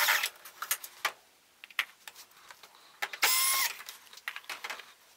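Cordless drill/driver spinning screws out of a flat-screen TV's back cover: a short run of the motor's whine ends just after the start, and another lasts about half a second, about three seconds in, with small clicks and rattles of the screws between.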